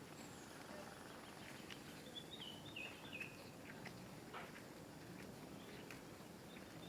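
A bird chirping briefly, a short run of notes stepping down in pitch about two seconds in, over faint outdoor ambience with scattered soft ticks.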